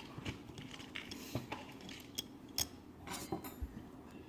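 Light, irregular metal clicks and clinks as the screws holding a carburetor's bowl cover are worked out and handled.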